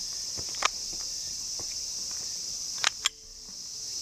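Steady high-pitched drone of insects in summer vegetation. A few sharp clicks cut through it: one early and two close together about three seconds in, as the airsoft pistol is picked up and handled.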